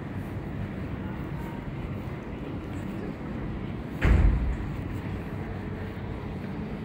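Steady low rumble of outdoor city ambience, with one sudden loud low thump about four seconds in.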